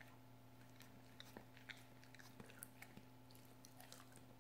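Faint, scattered clicks and crunches of an English setter's teeth gnawing on a bone, over a low steady hum.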